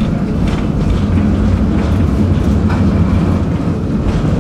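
Tram running along the track: a steady low rumble of wheels on rails and running gear, with a few faint clicks.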